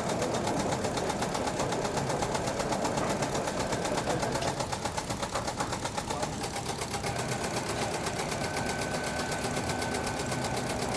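Factory machinery running with a fast, even rattle; a faint steady high tone joins in past the middle.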